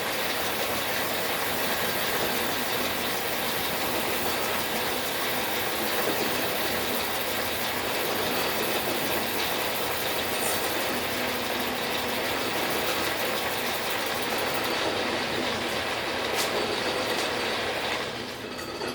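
Logan metal lathe running steadily under power, a continuous mechanical running noise that eases off near the end.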